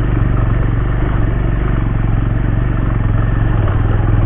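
Bajaj Pulsar 150's single-cylinder four-stroke engine running steadily under light throttle as the motorcycle rides over a rough, rocky dirt track, with some rattling from the bike over the stones.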